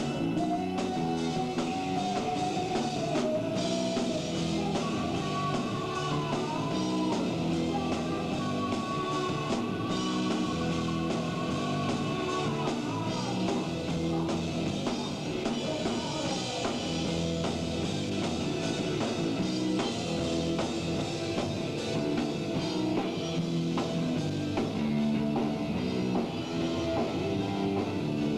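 Rock band playing live: drum kit and electric guitars, with long held notes that bend in pitch over roughly the first half.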